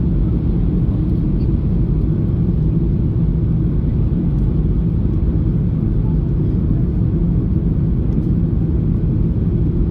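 Steady low rumble of a Ryanair Boeing 737-800's passenger cabin: engine and airflow noise from its CFM56 turbofans.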